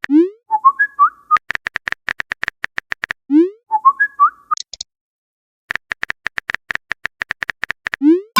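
Cartoonish sound effects in a pattern that plays twice: a quick rising whistle, a few chirpy blips, then a fast even run of sharp clicks.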